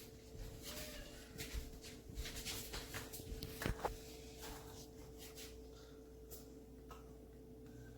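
Faint rustling and small clicks of things being handled, thickest in the first half with a couple of sharper clicks just before the middle, over a steady low hum.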